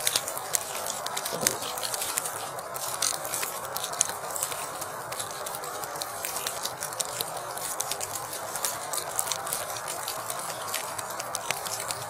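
Falling wet snow pattering steadily, with many small ticks of drops landing.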